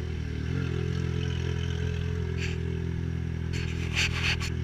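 Yamaha XJ6's 600 cc inline-four running steadily through an Atalla 4-into-1 aftermarket exhaust, its note stepping up slightly about half a second in. A short run of clicks and knocks near the end.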